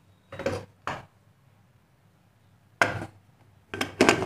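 Metal clanks of a pressure cooker's lid being put on and closed: about four separate clatters, the loudest near the end.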